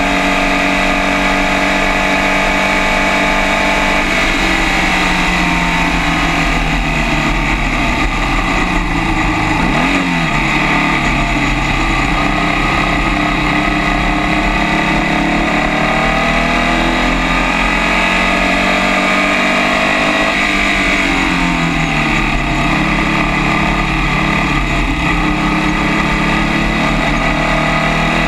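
Onboard sound of a Formula First race car's air-cooled Volkswagen flat-four engine running hard at racing speed. Its pitch drops about four seconds in, dips sharply and climbs again around ten seconds in, falls again around twenty seconds in and then builds back up as the car brakes for corners and accelerates out.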